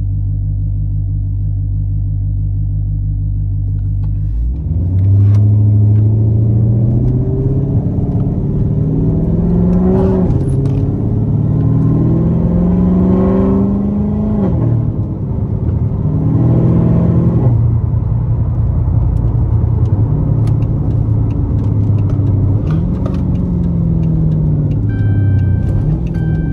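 Dodge Charger's swapped-in 392 (6.4-litre) HEMI V8 idling steadily, then pulling away about four seconds in: the engine note rises and drops back several times as the car shifts up through the gears, then settles into steady running with one more rise later on. A short chime sounds near the end.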